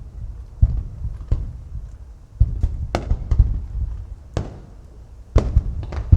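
Aerial fireworks shells bursting in succession: about nine sharp bangs, each trailed by a lingering low boom, coming closer together near the end.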